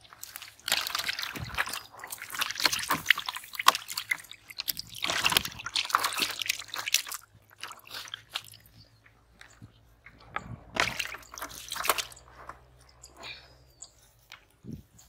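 Water sloshing and splashing in irregular bursts, loudest through the first half and again briefly a little past the middle.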